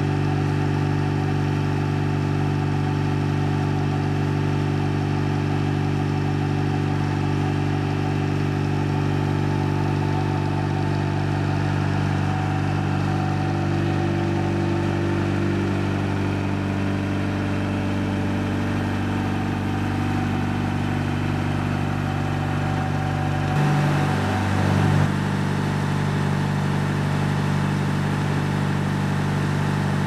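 Caterpillar E70B excavator's diesel engine running steadily as it works its hydraulics to lift and swing a load; a little over 23 seconds in the engine note shifts briefly and gets slightly louder for about a second and a half, then settles back.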